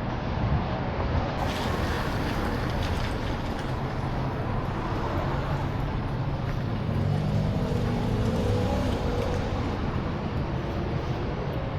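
Road traffic and car engines running close by, a steady hum. About seven to nine seconds in, it swells as a vehicle passes with a shifting engine note.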